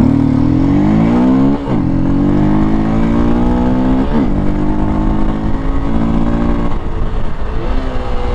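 Hero XPulse 200's 199.6 cc single-cylinder air-cooled engine accelerating under load on the road, its pitch climbing, with two upshifts where the pitch drops sharply, about two and four seconds in. It drops back about seven seconds in.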